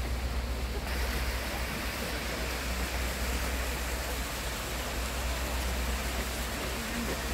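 Steady rushing of a waterfall cascading down a rock face, a hiss with a deep rumble under it. It grows brighter and fuller about a second in.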